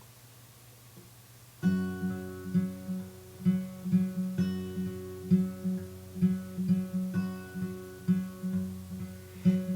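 Acoustic guitar playing the song's opening riff, starting about a second and a half in: repeated plucked notes over a held low bass note, about two or three notes a second.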